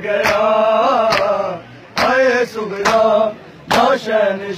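Men chanting a Punjabi noha in unison, in sung phrases with short breaks, while sharp slaps of hands on bare chests (matam) land roughly once a second.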